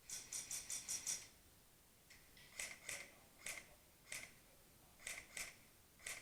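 Airsoft gun firing on semi-auto: a quick string of about six shots in the first second, then single and paired shots every half second or so.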